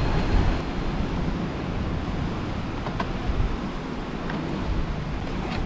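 Sea swell washing against the rocks, with wind buffeting the microphone in a low rumble. A couple of faint knocks come through, about three seconds in and near the end.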